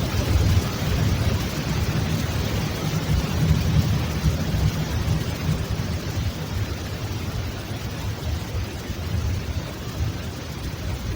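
A continuous low rumble that wavers constantly, with a steady hiss over it. It eases off slightly in the second half. It was recorded under a bed at night, and its source is unexplained.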